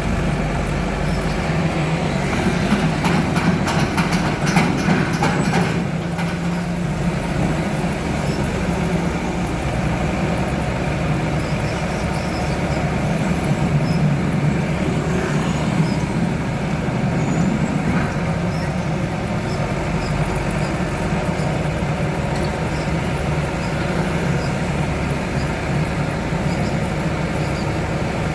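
Excavator's diesel engine running steadily, with a run of metallic clanks and knocks a few seconds in and a few more midway.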